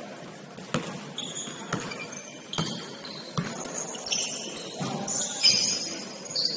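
Basketball being dribbled on a gym court, bouncing a little more than once a second, with sneakers squeaking on the floor that grow busier in the last couple of seconds.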